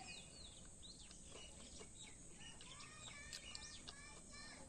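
Faint birds chirping: a series of short, quick high chirps over a low steady hiss, busiest about three seconds in.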